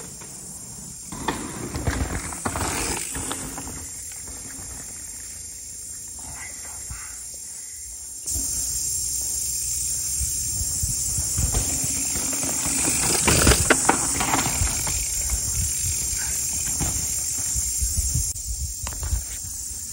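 A mountain bike running down a downhill trail, recorded on a phone: wind rushing over the microphone with tyre noise and knocks from the trail, loudest about two-thirds of the way through. The level jumps up suddenly about eight seconds in.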